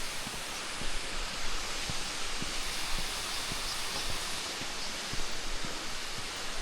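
Steady rushing roar of a waterfall, with short low thumps of wind buffeting the microphone.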